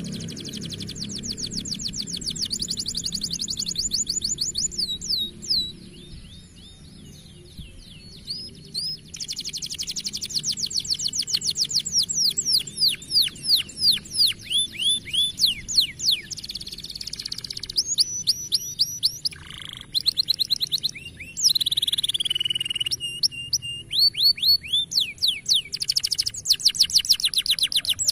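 Domestic canary singing: long, fast trills of quickly falling whistled notes, strung into rolls and broken by short pauses, with a quieter stretch about six to nine seconds in.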